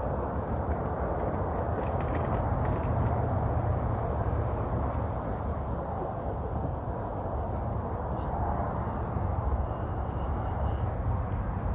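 Steady high-pitched insect chorus trilling without a break, over a low continuous rumble.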